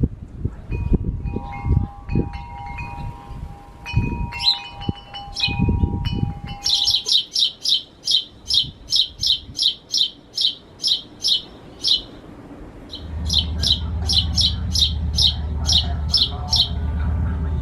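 Wind chimes ringing for the first several seconds, then a bird calling in a quick, even series of high chirps, about three a second. Low thumps come early on, and a low steady hum joins in the last few seconds.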